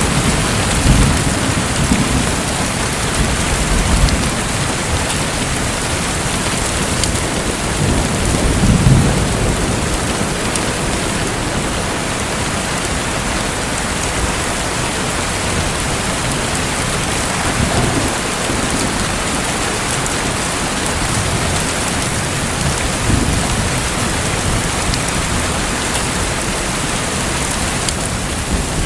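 Steady, dense water noise like heavy rain, with a few deep rumbles swelling and fading, the strongest about nine seconds in.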